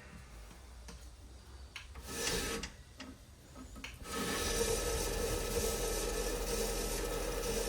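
AmeriBrade 2x72 belt grinder switched on about four seconds in, its abrasive belt then running steadily over a waterfall platen as the setup is tested. A short scraping noise comes a little before it.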